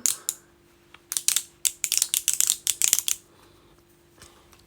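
Crackly bendy hand roller fidget worked in the hand, giving a run of sharp crackling clicks, about five a second, that stops about three seconds in.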